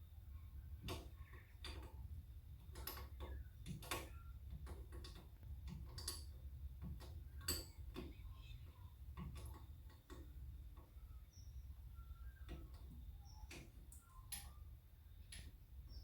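Irregular light clicks and taps of a flare spanner working the brake line nut at a rear brake wheel cylinder, over a low steady hum.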